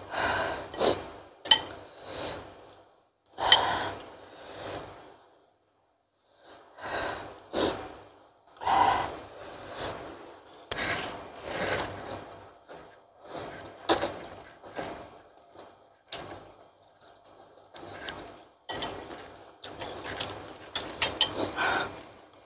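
A person eating very spicy instant noodles with meatballs and bird's-eye chilli: irregular bursts of eating noises and gasping breaths from the chilli heat, with clinks of cutlery against the bowl.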